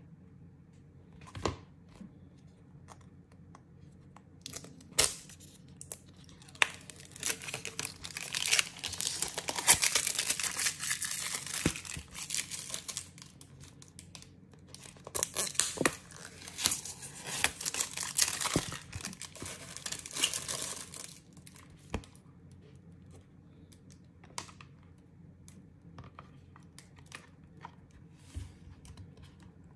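Plastic packaging of a new tablet case crinkling and tearing as it is pulled off by hand, in two long stretches, with scattered clicks and taps. Near the end come a few clicks as an iPad mini is pressed into the case's hard clear shell.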